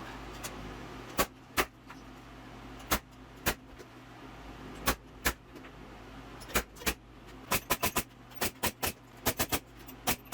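A series of sharp knocks, mostly in pairs about half a second apart, then a quicker run of taps toward the end, over a steady low hum.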